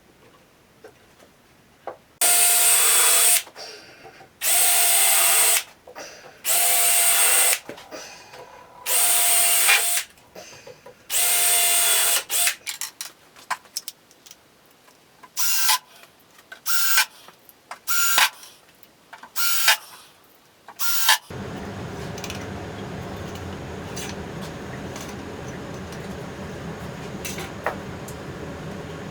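Power drill running in five bursts of about a second each with a steady whine, then a quicker run of shorter, higher-pitched bursts. Near the end of the second third the drill stops and a steady, quieter machine hum with a low drone takes over.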